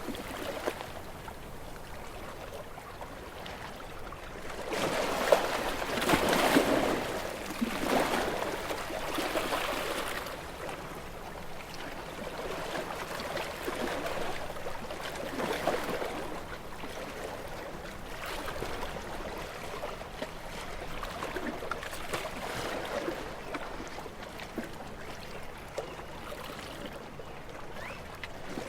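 Sea waves breaking against rocks: surges of rushing water rise and fall every few seconds, the strongest about five to seven seconds in, with a softer steady wash between them.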